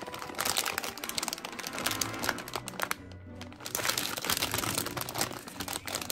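Crinkling of a foil-lined plastic Twix candy bag as it is handled and pulled open, with a short lull about halfway. Light background music plays underneath.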